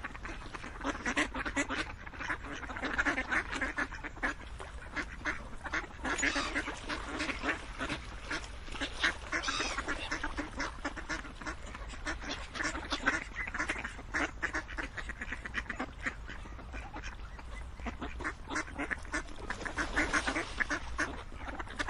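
A flock of ducks quacking, many short calls overlapping without a pause.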